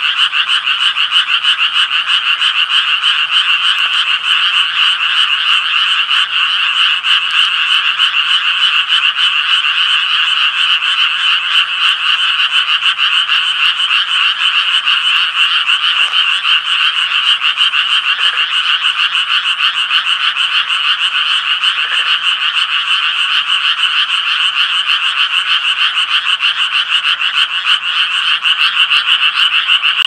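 Japanese tree frogs croaking in a dense, unbroken chorus of rapid, high, raspy pulses.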